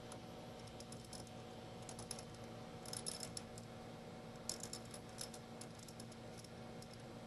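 Light metallic clicking and rattling in scattered clusters: a thread tap and its tap handle being backed out of a freshly tapped hole, the handle shaking around as the last threads come free.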